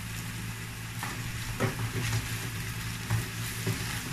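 Onions, bacon and kimchi sizzling in a nonstick frying pan while a slotted spatula stirs them, scraping and knocking against the pan about five times. A steady low hum runs underneath.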